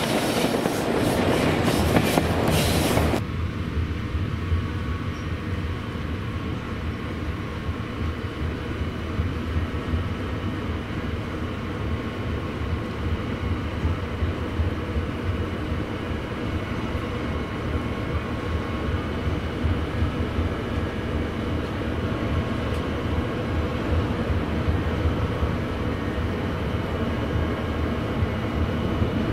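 Diesel train running, a steady low engine drone with rail noise. A louder rushing, crackling noise in the first three seconds cuts off suddenly.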